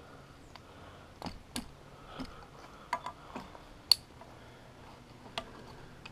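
Scattered metallic clicks and clinks of trad climbing gear: carabiners and cams on the harness rack knocking together while a sling and carabiner are clipped to a cam placed in a crack. There are about eight irregular clicks, and the sharpest comes about four seconds in.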